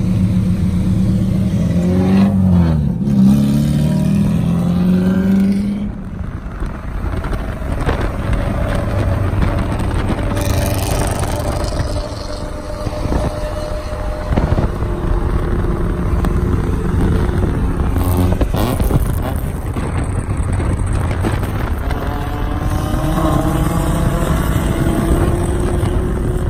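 Car engines running close by, the engine pitch swooping up and down about two to three seconds in. After about six seconds this gives way to steady road and engine noise from a moving vehicle, with an engine speeding up near the end.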